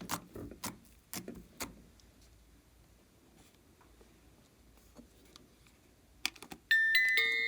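A handful of sharp clicks and taps from small hard objects being handled, fainter ticks after them, then a few more clicks. Near the end, bright chiming music with glockenspiel-like notes starts.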